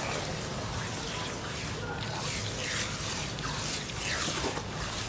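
Wet sand-cement mud being squeezed and mashed by hands in a metal basin: repeated wet squishes and crumbly crackles.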